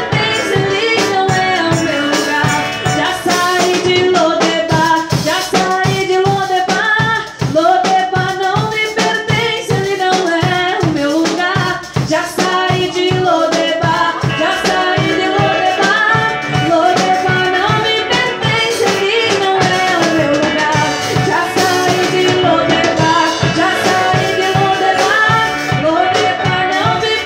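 A live band playing a gospel song: women singing into microphones over an acoustic guitar and a drum kit keeping a steady beat.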